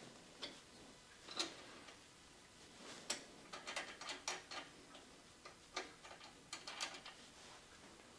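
Light, irregular metal clicks and taps as a hydraulic hose end's swivel nut is handled and threaded by hand onto a fitting on the lift cylinder. There are single clicks, then quick clusters near the middle and again later.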